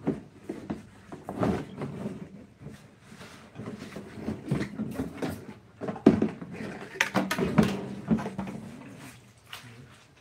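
Irregular knocks, taps and short scraping sounds, with the loudest strikes about a second and a half in and again about six seconds in.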